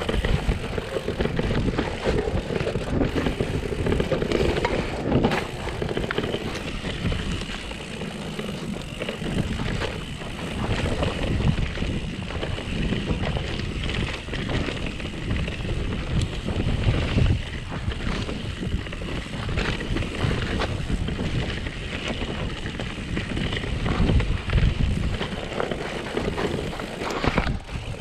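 Mountain bike ridden fast down a rough dirt downhill trail, heard from an action camera: tyres rumbling over the ground, the bike rattling and clattering over bumps, and wind buffeting the microphone.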